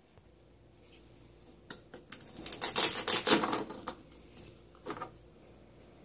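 Velcro tearing apart as a plastic toy ear of corn is split into halves: a rapid crackling rip lasting about two seconds, with a few light plastic clicks before and after.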